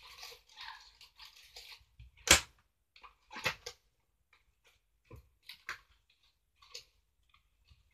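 Rummaging sounds: a spell of rustling, then a row of separate knocks and clatters, the loudest a sharp knock a little over two seconds in.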